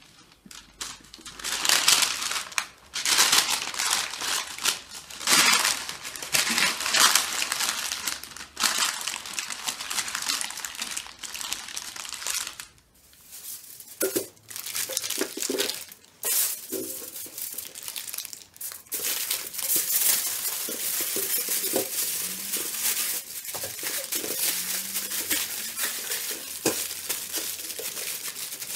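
Baking paper crinkling as it is folded around a bundle of skewered chicken on a baking tray, then aluminium foil crinkling as it is wrapped and pressed over the bundle in the second half.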